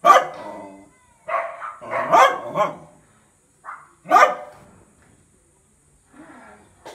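Dachshund barking in a run of about half a dozen separate barks. The loudest come at the start, about two seconds in and about four seconds in, with fainter ones near the end.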